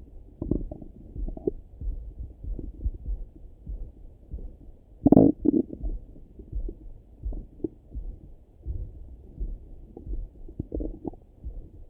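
Stomach gurgling heard through a Littmann stethoscope on the belly: a loud gurgle about five seconds in, with smaller gurgles near the start and near the end, over a low, regular thudding.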